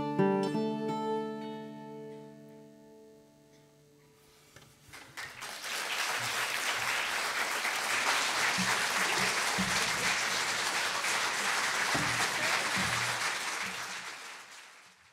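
The final plucked chord of an acoustic guitar piece rings out and dies away over a few seconds. After a short quiet gap, an audience breaks into steady applause, which fades out near the end.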